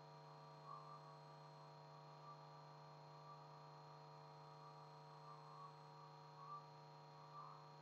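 Near silence with a steady electrical hum, and a few faint soft knocks here and there.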